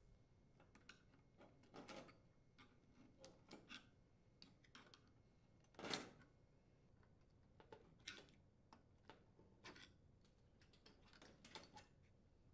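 Faint scattered clicks and rustles of wire spade connectors being worked off the terminals of an electric range's radiant surface element, with one louder click about six seconds in.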